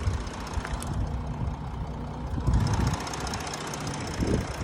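Audi Q7 engine running at idle with the climate control off, getting a little louder from about two and a half seconds in. Held at around 900 rpm with the air conditioning off, it runs without the knock that appears when the climate control is switched on, which the owner ties to the A/C load.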